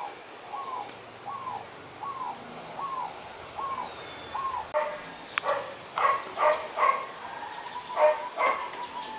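A zebra dove repeats short, arched cooing calls, about one every three-quarters of a second: one bird calling for attention as it follows another. About halfway through, these give way to a louder, choppier run of short calls and sharp clicks.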